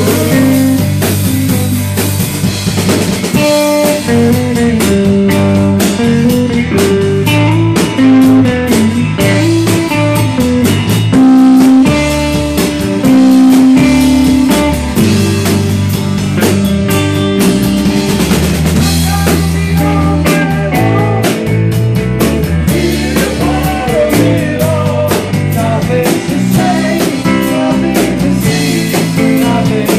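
Live rock band playing loud at a steady beat: electric guitar, bass guitar and drum kit.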